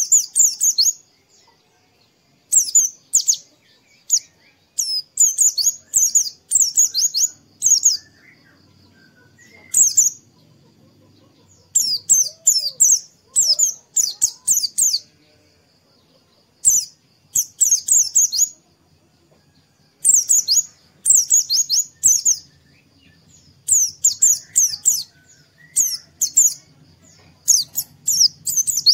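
White-eye (pleci) singing: clusters of rapid, high chirping notes about a second long, repeated again and again with short pauses, over a faint steady high tone.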